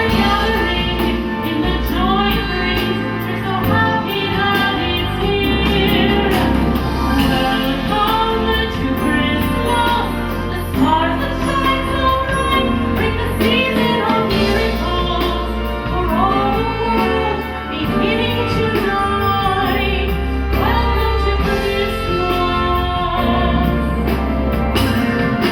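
Christmas pop song with a powerful female lead vocal and backing voices over a band track with a steady bass line, heard over a live show's sound system.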